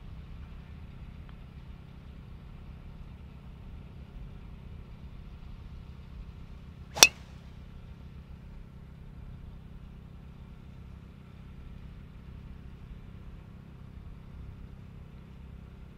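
A golf driver strikes a ball off the tee: one sharp crack about seven seconds in, over a steady low rumble.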